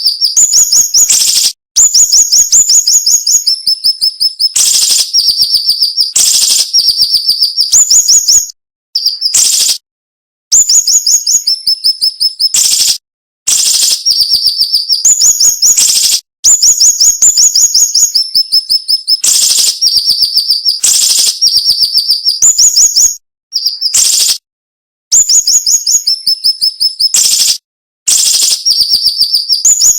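Siri-siri bird singing in rapid, sharp trills of many quick high notes, each phrase stepping down in pitch partway through, repeated over and over with only brief pauses between phrases.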